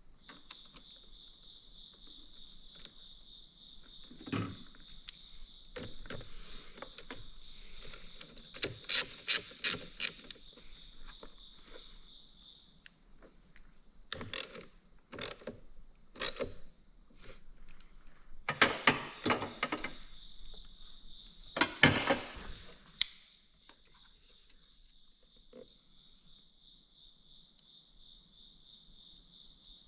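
Crickets chirping steadily in the background in a fast, even trill, while a series of sharp clicks, knocks and clatters comes and goes, loudest in clusters about nine, nineteen and twenty-two seconds in.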